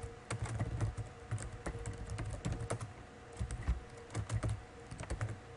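Computer keyboard typing: a run of quick, irregular keystrokes as a login email and password are entered.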